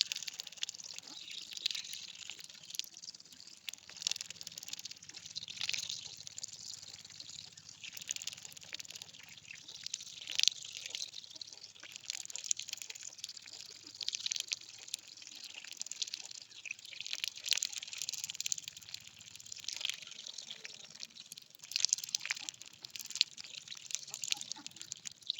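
Water splashing and dripping in short, irregular bursts.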